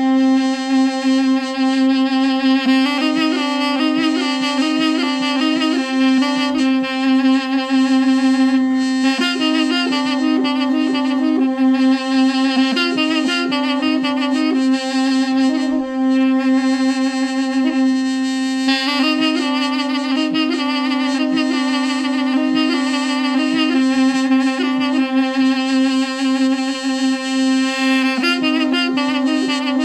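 Two mey (balaban) double-reed pipes: one holds a steady low drone while the other plays an ornamented Kurdish dengbêj melody above it in phrases with short breaks.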